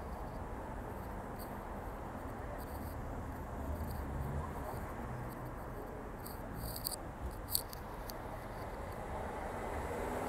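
City street traffic: a steady rumble of car engines and tyres, swelling near the end as a vehicle comes closer, with a few faint high clicks and one sharp tick about two-thirds of the way through.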